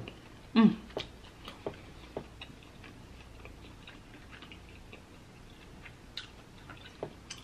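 A person's short hummed sound about half a second in, falling in pitch, then soft, irregularly spaced clicks and ticks close to the microphone.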